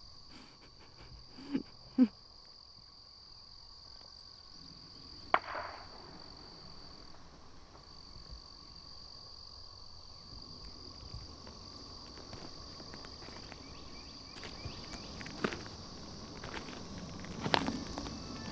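Crickets chirping in a steady high chorus, with a few scattered soft knocks over it.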